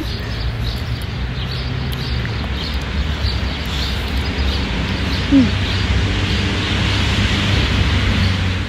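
Wind buffeting the microphone in a steady low rumble, with a hiss of outdoor noise that swells in the last few seconds. A few short bird chirps, and one brief high squeak just past halfway.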